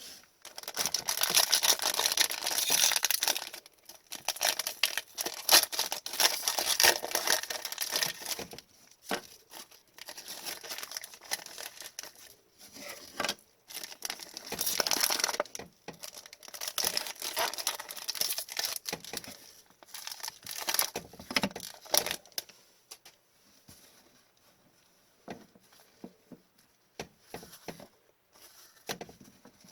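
Trading card pack wrappers being torn open and crinkled in long bursts, with cards shuffled between them. The sound tapers to a few light handling clicks over the last several seconds.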